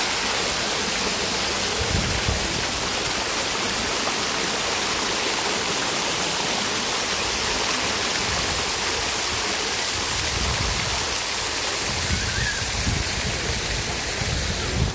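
Water cascading from a swimming pool's waterfall feature and splashing onto the water and pool edge, heard up close as a steady loud rush.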